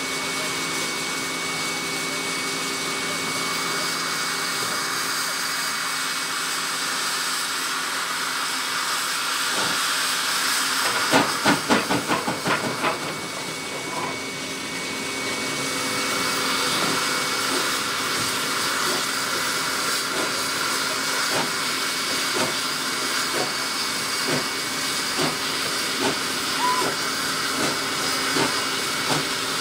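Steam locomotive 5917, a 59 class 2-8-2, hissing steam, then pulling away: about eleven seconds in comes a quick run of loud exhaust chuffs, followed by steady hissing with slower chuffs about once a second as it gets moving.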